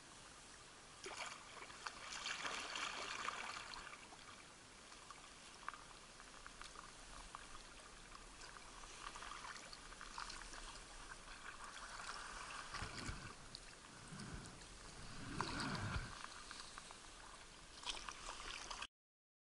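Kayak paddling: water splashing and trickling off the paddle blades with each stroke, louder in a few spells, with a low rumble near the end. The sound cuts off suddenly just before the end.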